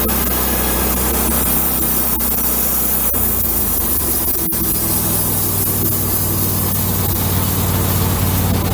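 Wood-Mizer LX150 bandsaw sawmill running steadily with its blade cutting through a block of pine. The engine note shifts about three seconds in, and there is a sharp click about a second and a half later.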